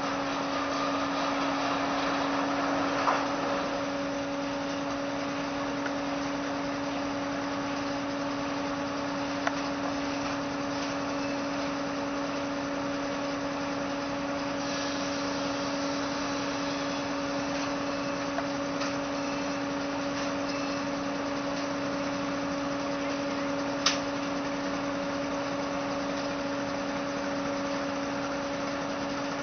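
Tractor engine and the sawmill it drives running at a steady speed with a constant hum, no log being cut. Three short, sharp knocks stand out over it.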